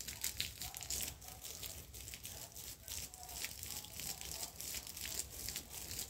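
Water from a garden hose spraying onto leafy shrubs: a steady, irregular crackle of droplets striking leaves.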